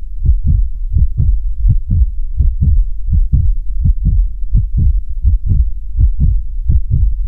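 Recorded human heartbeat: a steady rhythm of low lub-dub thumps. These are the first and second heart sounds, made as the heart valves close.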